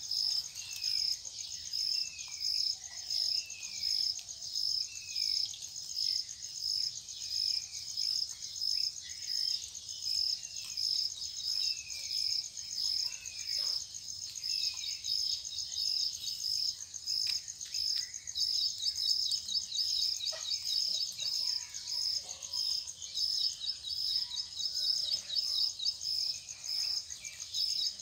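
Insects chirping in a steady pulsing rhythm, about three chirps every two seconds, with a bird repeating a short falling call through the first ten seconds or so. A second, faster insect trill joins about eighteen seconds in.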